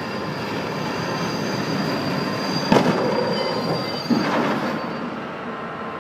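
Diesel locomotive running in with its wheels squealing, then striking a coach bus: a loud crash about three seconds in and a second bang about a second and a half later.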